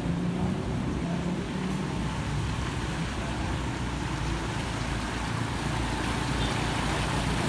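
Motorbike engine running as it rides through deep floodwater, over a steady wash of water noise; the engine hum fades after about a second.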